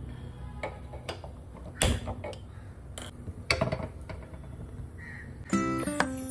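A gas stove being lit and a pan set on the burner: a string of sharp clicks and metal knocks, the loudest about two and three and a half seconds in. Plucked guitar music starts about five and a half seconds in.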